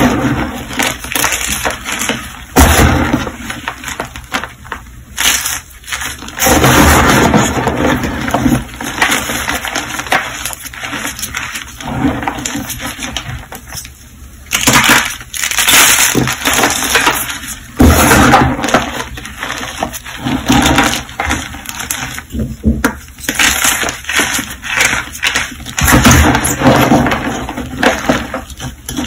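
Hands crushing and crumbling blocks of reformed gym chalk in a tub of loose chalk powder: dry crunching and crumbling in irregular bursts, with brief quieter pauses between squeezes.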